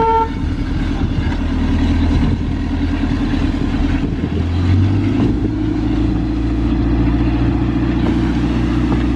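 Large engine running steadily and loud, stepping up in pitch about five seconds in. A short horn toot cuts off just as the sound begins.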